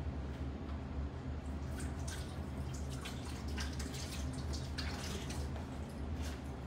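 Water poured from a metal hand-washing cup over hands into a basin for ritual hand washing, splashing and dripping in many short spurts from about two seconds in, over a steady low hum.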